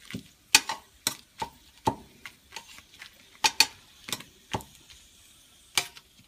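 Metal tongs clicking and scraping against a stainless steel skillet while dried chiles are turned in a little hot oil. The clicks come irregularly, about a dozen of them, over a faint sizzle.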